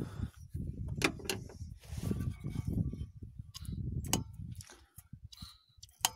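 Throttle linkage of an open carburetor clicking as it is worked by hand to pump the accelerator pump. There are a handful of sharp clicks over low rumbling noise on the microphone, and the rumbling dies away about two thirds of the way through.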